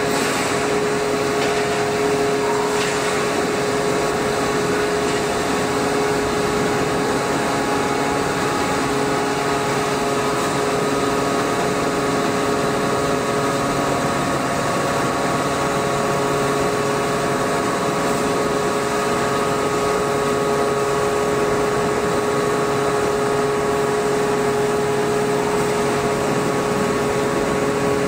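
Large hydraulic forging press running through a slow pressing stroke. It makes a steady droning whine with a few fixed tones, as from its hydraulic pump and motors, holding at an even level throughout.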